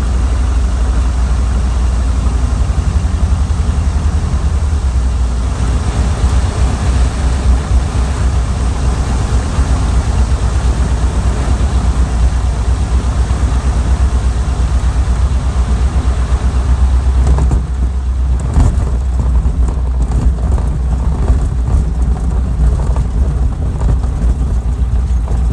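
Funk light airplane's piston engine running steadily, with a strong low hum and a rushing noise over it; about 17 seconds in the higher rushing noise drops away while the low hum carries on.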